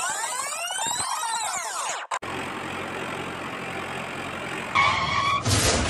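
A sweeping sound that rises and falls in pitch, then after a sudden cut about two seconds in, a tractor engine idling steadily. Near the end it gets louder, with steady higher tones on top.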